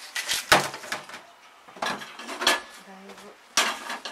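Kitchen clatter at a stainless-steel sink: a head of cabbage and small kitchen items handled and knocked about, in three short bursts of knocks and rustles.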